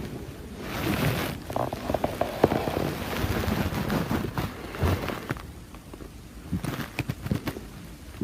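Stomach growling: irregular gurgles, pops and low rumbles of gas and fluid moving through the gut, going quieter for about a second about two-thirds of the way in.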